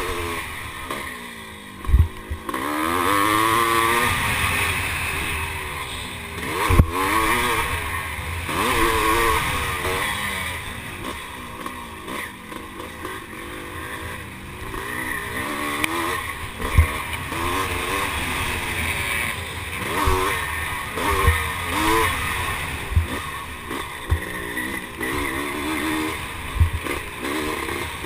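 1978 Husqvarna CR390's single-cylinder two-stroke engine revving up and down hard as the bike is ridden at race pace, heard from onboard. Several sharp knocks stand out over the engine.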